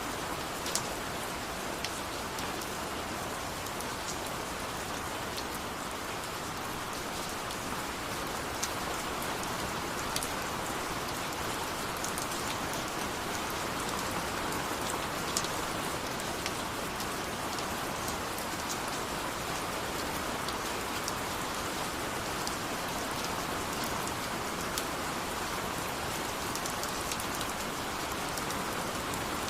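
Steady rainfall, an even hiss of rain with scattered individual drops ticking.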